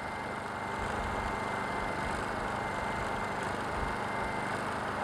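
Honda EU2000 inverter generator's single-cylinder four-stroke engine running steadily with almost no load.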